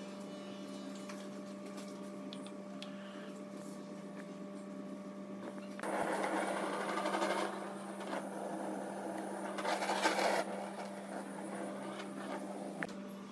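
A small electric power tool running steadily, with two louder, rougher stretches: one about six seconds in lasting over a second, and a shorter one about ten seconds in.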